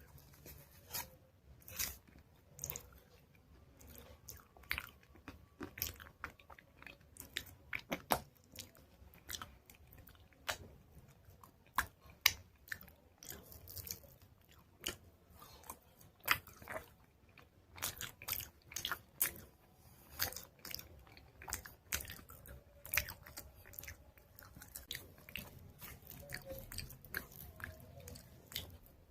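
Close-miked crunching of hardened chalk paste, a steady run of sharp, irregular crunches and crackles, several a second.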